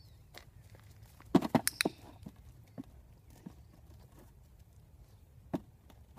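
A dog's paws and nose knocking against an upturned plastic bowl on the ground: a quick cluster of sharp knocks about a second in, then a single knock near the end.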